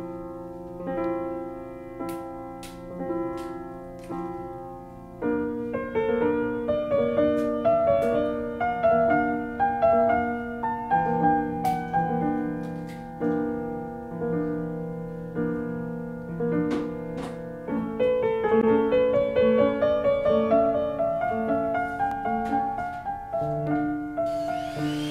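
Solo piano music playing a lively tune. Near the end a power router switches on, a rising whine over a hiss.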